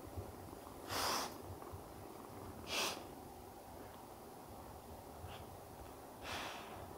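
Golden retriever puppy blowing air through its nose three times in short, sharp breaths, about one, three and six seconds in, with its face pressed into a plush bed.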